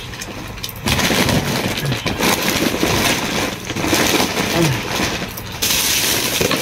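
Plastic shopping bags rustling and crinkling as items are handled and crammed in, sharper and brighter near the end.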